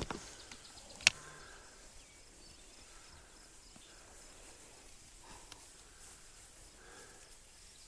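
Quiet pasture ambience: faint insect chirping, repeating rapidly at a high pitch, with one sharp click about a second in.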